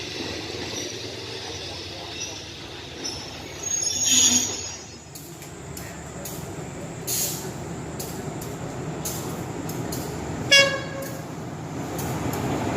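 Train rumbling along the track, growing louder toward the end, with a short noisy burst about four seconds in and one brief horn toot about ten and a half seconds in.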